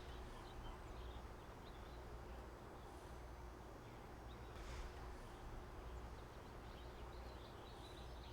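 Faint outdoor ambience: a steady low rumble with scattered faint bird chirps.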